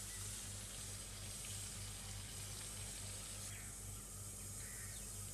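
Faint steady hiss with a low, softly pulsing hum of background noise; the hiss drops a little about three and a half seconds in.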